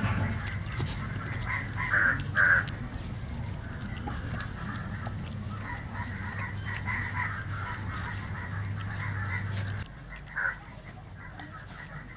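Birds calling in the background, with a few short, loud calls about two seconds in and another near the end, over a steady low hum that cuts off near the end.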